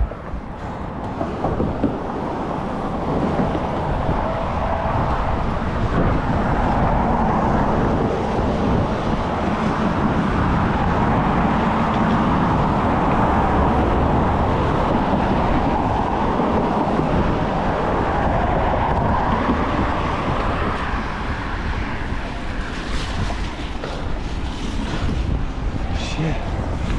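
Steady rush of wind over the microphone of a rider pedalling a mountain bike at speed, growing louder for a stretch in the middle and easing off near the end.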